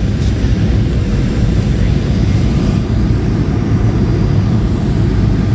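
Steady low rumble of an airliner's cabin in flight: engine and airflow noise heard from a passenger seat, with a faint tick near the start.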